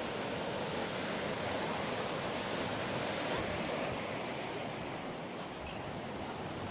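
Steady rush of running water over a dog being bathed.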